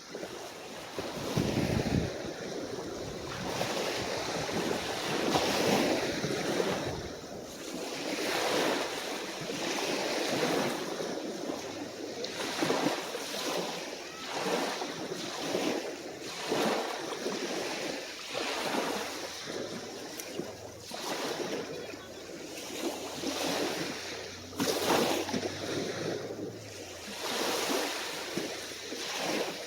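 Small, calm waves lapping and breaking on a beach, one wash after another every second or two. A faint low hum sits underneath through the middle part.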